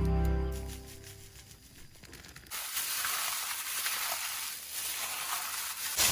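Background music fading out, then a steady hiss that starts abruptly about two and a half seconds in.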